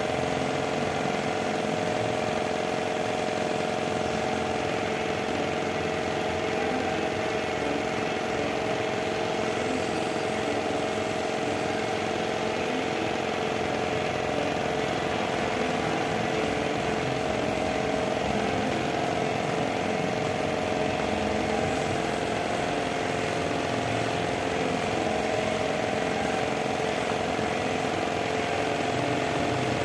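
A steady motor hum at an even level, with a few wavering pitched tones in the middle range, like an engine or machine idling.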